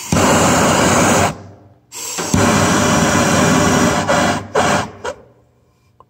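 A butane jet torch lighter firing in hissing bursts: one of about a second, then a longer one of about two seconds, then a couple of short spurts, while it is held at a gas heater's pilot burner to light it.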